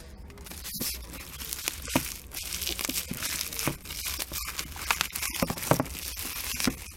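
Packaging crinkling and tearing as the smartphone box's wrapping is handled and torn, with scattered small clicks and knocks throughout.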